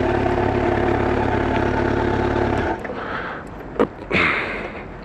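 Kawasaki ZX-12R's inline-four engine idling steadily, then shut off abruptly about two and a half seconds in. After it stops there is a sharp click and a short rustle.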